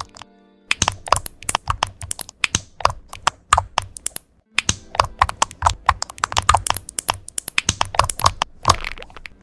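Computer keyboard being typed on rapidly, a dense run of sharp key clacks, pausing briefly near the start and again about four seconds in.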